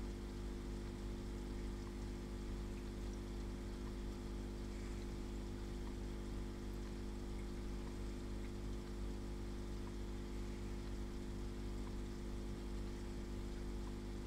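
Aquarium pump running: a steady low hum of several tones with a faint hiss of moving water.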